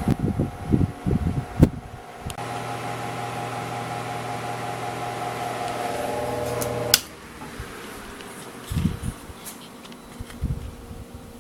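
1960s Dominion 12-inch electric table fan running with a steady motor hum, with a few low thumps in the first two seconds. About seven seconds in a sharp click sounds and the hum cuts off abruptly, leaving a fainter background with a few low bumps.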